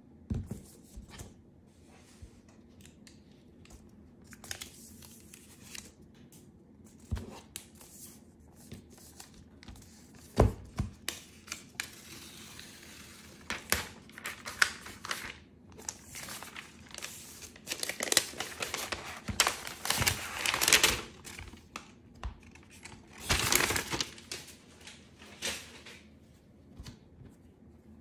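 Hands handling an iPad's cardboard and paper packaging: scattered light knocks as the box parts are set down, then paper rustling and tearing as the paper wrap is peeled off the tablet, in several longer strokes in the second half.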